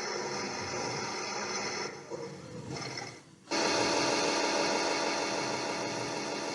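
Theo Klein Bosch toy washing machine playing its recorded washing-machine sound effect through its small speaker: a steady mechanical whirr made of many fixed tones. It fades out about two seconds in and starts again abruptly a second and a half later.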